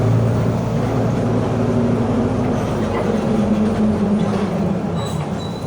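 Mercedes-Benz OF 1721 bus driving, its OM924LA 4.8-litre four-cylinder diesel giving a steady drone whose pitch wavers slightly, with the drivetrain growl that the uploader puts down to a noisy differential. A faint high whine joins near the end.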